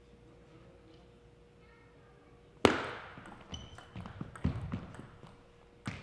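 A table tennis rally: a loud, sharp hit of the ball about two and a half seconds in rings through the hall, then quicker clicks of the ball on paddles and table follow, along with brief squeaks of shoes on the gym floor.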